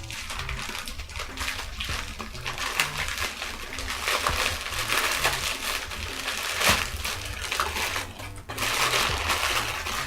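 Mailing envelope being torn open and its packaging rustled and crinkled, with a sharp snap about two-thirds of the way through. Faint background music with short repeated notes plays underneath.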